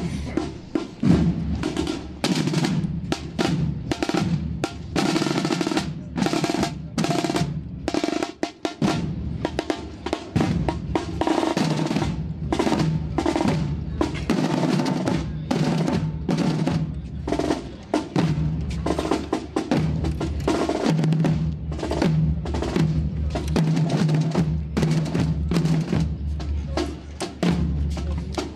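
A procession band's drum section playing a march: snare drum rolls over repeated bass drum beats, with no melody over them.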